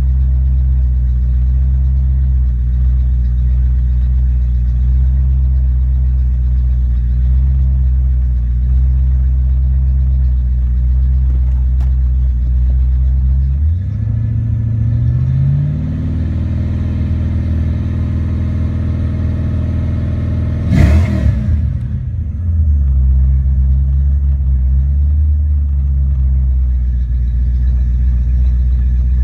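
1993 Ford Mustang SVT Cobra's 5.0-litre V8 idling steadily. About halfway through its speed rises and holds at a fast idle, then a quick sharp rev and drop follows, and it settles back to idle.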